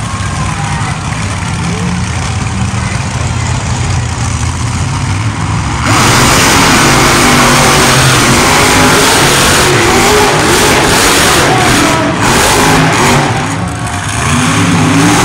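Monster truck engines idling and burbling at the start line, then about six seconds in both trucks go to full throttle at once and run loud and steady down the dirt drag course. Near the end the engine noise dips briefly, then swells again as the trucks go over the jumps.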